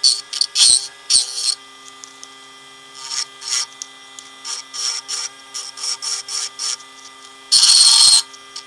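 CNC007 mini wood lathe running with a steady motor hum while a tool scrapes the spinning black alder workpiece in short repeated strokes, several a second. The strokes pause for about a second and a half, start again, and end in one longer, louder scrape near the end.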